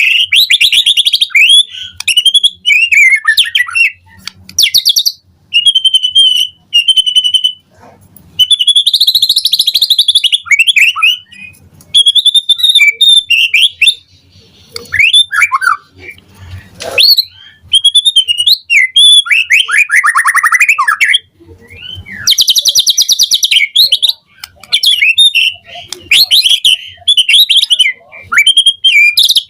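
White-rumped shama (murai batu) singing loudly in full song: a long run of varied phrases of clear whistles, sweeping slurred notes and fast, rattling trills, broken by short pauses, its repertoire full of mimicked phrases.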